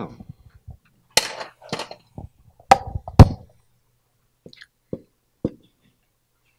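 Dry-erase marker knocking and scraping on a whiteboard as Chinese characters are written: a string of sharp taps, loudest about three seconds in, then three softer taps.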